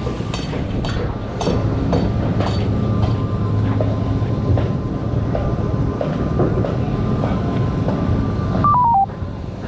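Heavy machinery rumbling steadily with knocks and clatter and a thin steady whine. Near the end a short tone steps down in pitch three times.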